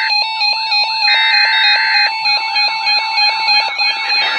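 Emergency alert broadcast signal: a steady alert tone under a repeating warbling chirp, with about a second of buzzing, modem-like digital header data about a second in.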